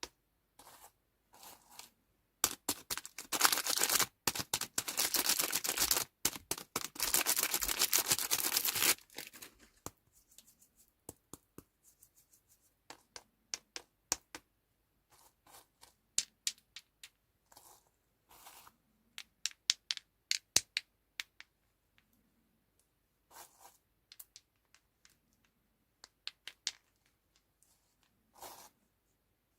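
Candy packaging being torn open and crinkled for several seconds, a dense crackle of sharp clicks. After that come scattered light taps, clicks and small rustles as the candy and wrapper are handled.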